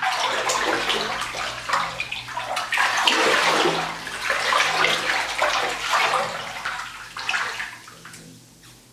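A hand and arm sweeping and splashing through a full bathtub of water, the water sloshing irregularly; the splashing dies away in the last second or so.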